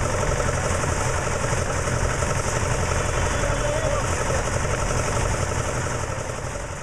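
Portable drum concrete mixer running, its small stationary engine keeping up a steady low engine note, with workers' voices in the background.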